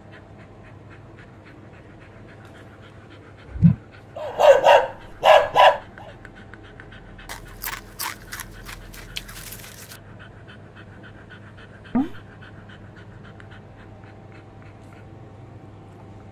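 A dog panting fast and evenly, with two louder dog vocalisations about four to six seconds in. A run of sharp clicks and a brief hiss come about seven to ten seconds in.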